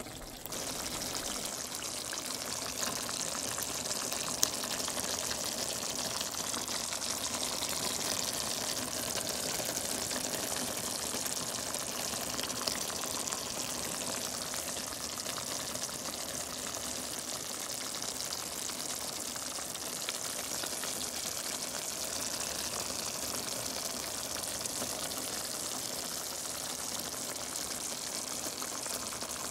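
Pot of pork caldereta stew bubbling as it simmers: a steady hiss of bubbling that comes in about half a second in.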